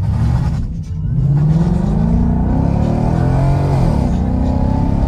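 Ford Mustang GT's 5.0-litre V8 with a Ford Performance exhaust, heard from inside the cabin, accelerating. Its note rises for about two seconds and then levels off.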